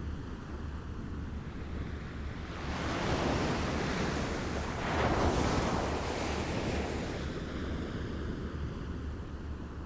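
Small waves lapping against the shore, one wave swelling up about three seconds in, peaking at about five seconds and washing back, over a steady low rumble of wind on the microphone.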